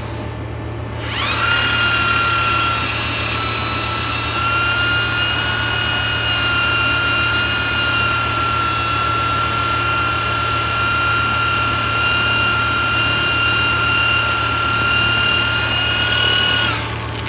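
Handheld power tool spinning up about a second in, running at a steady high whine for some fifteen seconds, then stopping near the end, at work on a mooring winch's brake band during a brake lining renewal. A steady low hum runs underneath.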